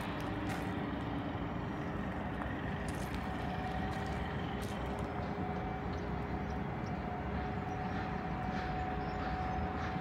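Steady urban outdoor background: a low rumble with a constant mechanical hum over it at a couple of fixed pitches, one of them coming in about three seconds in, and a few faint ticks.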